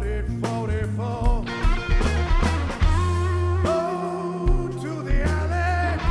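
Blues-rock trio playing: electric guitar, electric bass holding long low notes, and drums, with a man singing over them.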